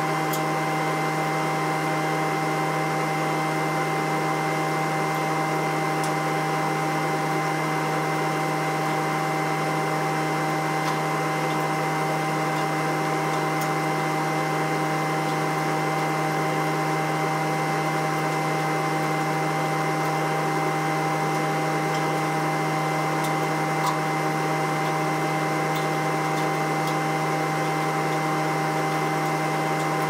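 Skid steer engine running at a constant speed: an even drone with a few fixed tones that never rises or falls.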